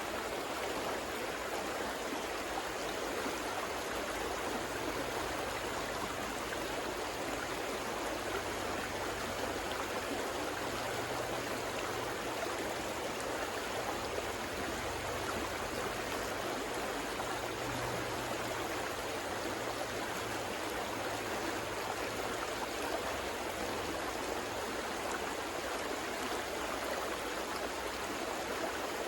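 River water flowing over rocks: a steady, even rushing with no pauses or changes.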